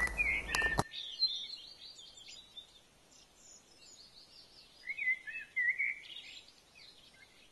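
Small songbirds chirping and twittering in short, quick calls, loudest about five to six seconds in. A couple of sharp clicks in the first second.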